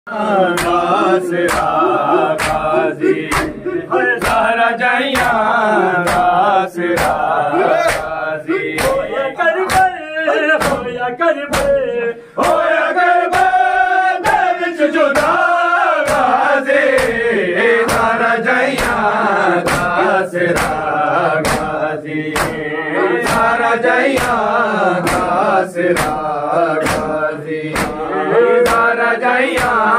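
Men chanting a Punjabi nauha lament, a lead voice with the gathering, over evenly spaced sharp slaps of matam (hands striking chests in unison), a little more than one a second.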